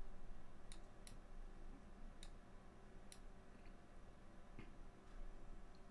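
Four or five faint, sharp computer mouse clicks spread over a few seconds, over a low steady hum.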